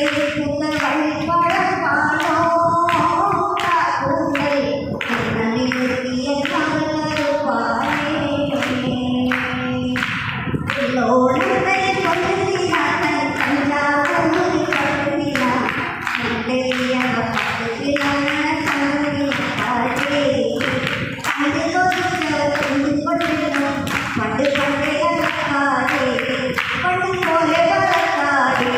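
A woman singing a Malayalam film song, the melody carried on throughout, over a steady beat of sharp hits.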